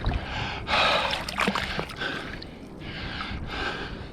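A man breathing hard, several loud breaths in and out, each about half a second long, out of breath from the exertion of digging.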